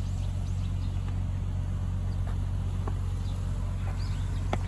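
Steady low engine hum, with a few light clicks.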